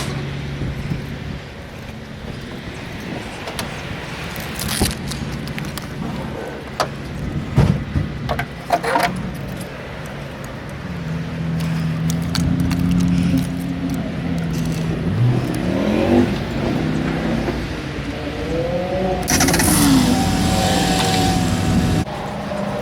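Metal clinks, clicks and scraping, like keys or hand tools on metal, for the first several seconds. About halfway through, a steady low mechanical hum comes in, like a car engine running, with a few short rising and falling whines over it.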